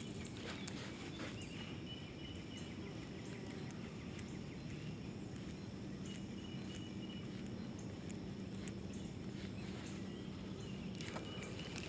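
Faint outdoor ambience: insects chirping on and off in thin, high trills over a steady low hum.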